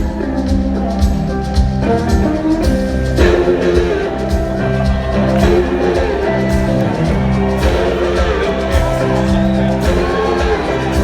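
A blues-rock band playing live: electric guitar over bass and drums, with a steady beat and sliding, wavering guitar or vocal lines.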